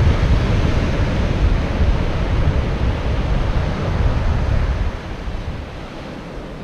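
Wind buffeting the microphone over the hiss of ocean surf; the low wind rumble drops away about five seconds in, leaving the surf.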